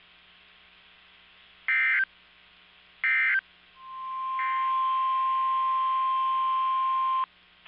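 NOAA Weather Radio: two short bursts of screechy SAME digital data tones, then the steady 1050 Hz weather alert tone, which fades up and holds for about three seconds before cutting off abruptly; the alert tone signals that a warning broadcast follows.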